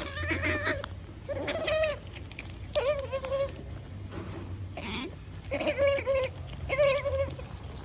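Pet otter making its "nom-nom" noise: a run of short, pitched calls of about half a second each, roughly five or six of them with gaps between.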